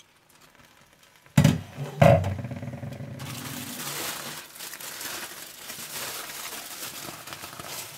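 Metal lid of a pot of steamed pulao clanking twice as the dum is opened, the second knock ringing briefly, followed by a steady rustling hiss as the rice is uncovered.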